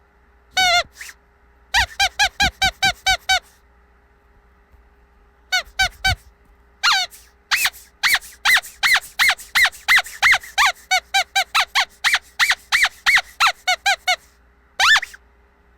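Squeaky dog toy squeezed over and over, giving short high squeaks in quick runs of about three to four a second, with pauses between the runs.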